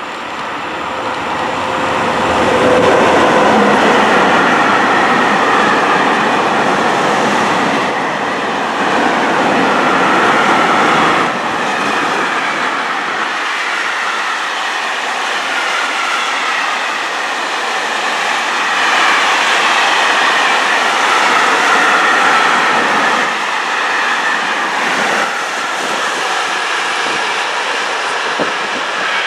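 A train passing along the track, wheels running on the rails in a loud steady rush with a few sharp clicks; it builds over the first three seconds and stays loud throughout.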